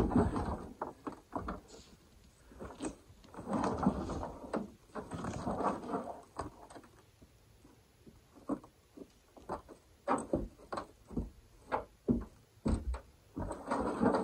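A field-dressed mule deer being hauled and loaded by hand, with scraping and shuffling in the first half and then a run of separate knocks and thumps.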